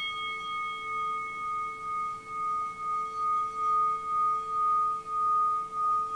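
Hand-held singing bowl ringing with one steady low tone and a clear higher one, its topmost overtones fading away. The tone pulses about twice a second and swells stronger as a wooden mallet is worked around the rim.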